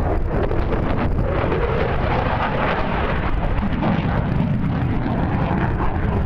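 Steady rushing jet noise from Thunderbirds F-16 fighters overhead, mixed with wind buffeting the microphone.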